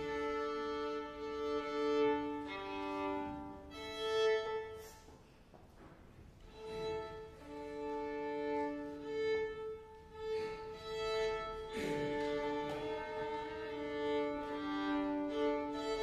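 Violin duo music: slow, sustained bowed notes, mostly two pitches held together, with a brief lull about five seconds in before the held notes resume.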